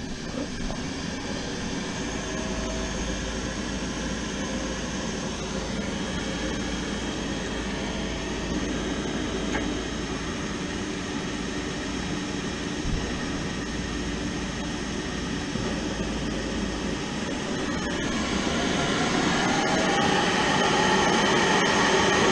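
Peerless Pure Fire boiler's inducer fan motor running steadily on a call for heat during the trial for ignition, with a low hum; the running gets louder and brighter from about 18 seconds in.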